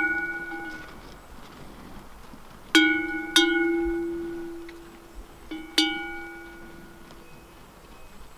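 A large sheep bell (talangă) clanking as the sheep moves: the same ringing tone at each stroke, dying away slowly. It is ringing at the start, is struck twice about three seconds in and twice more just before six seconds, then fades.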